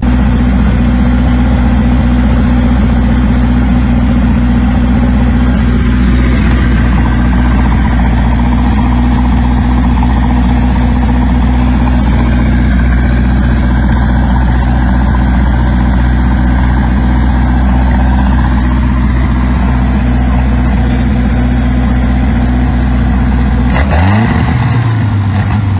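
MerCruiser 3.0L four-cylinder marine engine running on the ground out of the boat, idling steadily and loudly. Near the end it is revved up once, the note rising, before settling at a faster speed.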